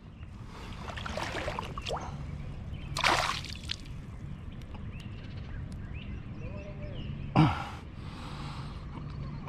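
A man's pained breathing, with a few sharp gasps and exhales, just after a fishing hook has gone into his finger, along with water sloshing. The loudest gasp comes about three seconds in, and a short grunt comes near the end.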